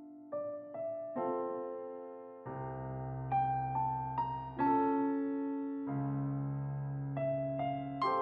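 Background music: a slow, gentle piano piece of single notes and chords, each struck and left to ring and fade, with low bass notes under the middle chords.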